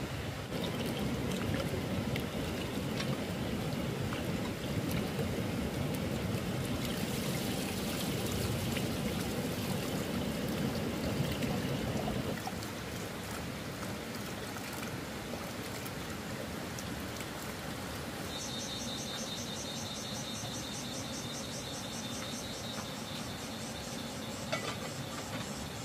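Water running steadily, louder for the first twelve seconds or so and softer after. In the last third a high, rapidly pulsing buzz joins in.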